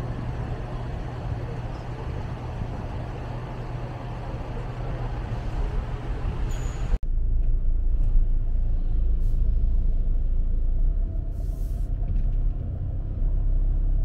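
Steady rumble of motor traffic or a vehicle engine, with a hiss of road noise. About seven seconds in it cuts off abruptly and gives way to a deeper rumble with less hiss.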